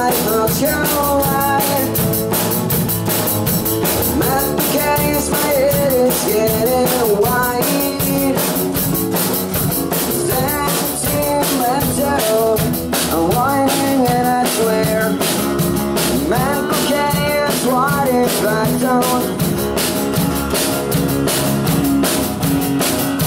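Live acoustic rock band playing: two acoustic guitars strummed over a Pearl drum kit keeping a steady beat, with a male lead vocal singing.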